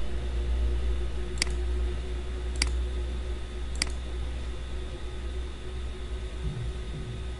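Three sharp computer mouse clicks, about a second apart, over a steady low hum and hiss.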